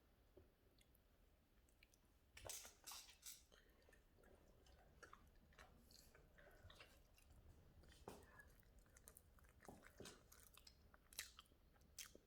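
A dog chewing food, faint irregular crunches and bites, with a cluster of louder crunches about two to three seconds in.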